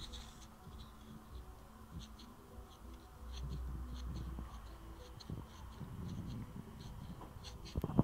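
Faint handling noise and small, scattered clicks as a finger presses the spring-loaded pins of a MagSafe charger connector in and out, with a louder knock of handling near the end.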